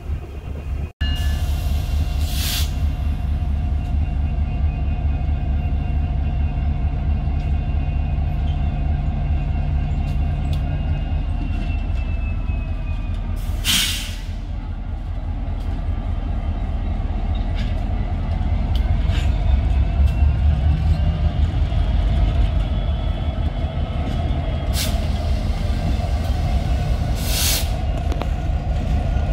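Canadian Pacific diesel freight locomotives rolling slowly past close by: a steady deep engine rumble that grows louder past the halfway point, with thin high whining tones from the wheels and a few sharp clanks.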